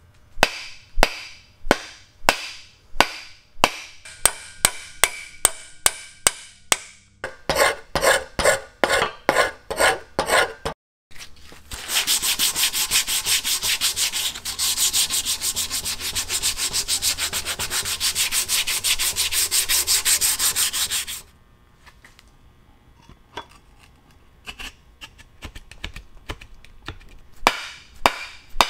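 A mallet striking the end of a wooden axe handle again and again, about two blows a second and then faster, driving the axe head onto the handle. After a short break, a power sander runs steadily on the wooden handle for about nine seconds. The mallet blows start again near the end.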